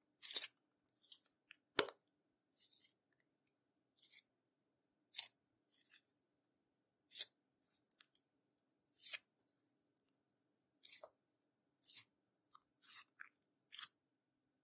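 Close-up crisp clicks and crackles from clear slime being pressed and worked as makeup is mixed in, coming in short bursts about once a second, with one sharper click about two seconds in.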